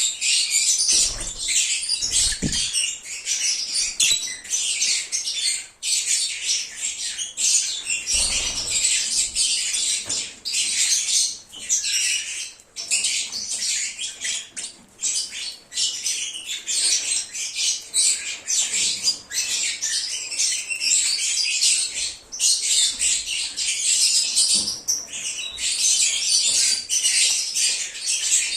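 A flock of lovebirds (Agapornis) chattering, with dense, shrill chirps and squawks overlapping without a break. A few soft low thumps come about a second in and again near eight seconds.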